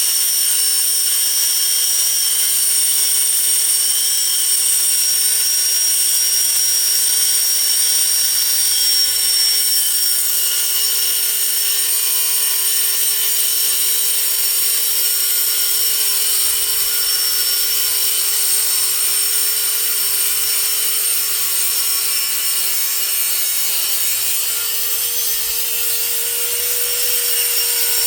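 Hammerhead 6-amp 4.5-inch electric angle grinder cutting through a metal chain link fence post: a steady motor whine over a hissing grind of the wheel on metal, the pitch sagging slightly a couple of times and rising back near the end.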